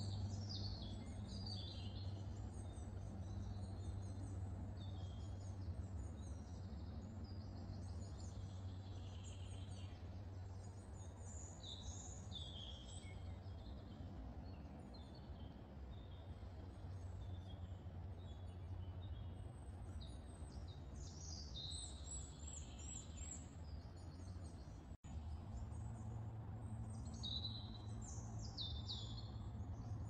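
Several songbirds singing, with quick high chirps and twittering phrases coming one after another, over a steady low background hum. The sound cuts out for an instant about 25 seconds in.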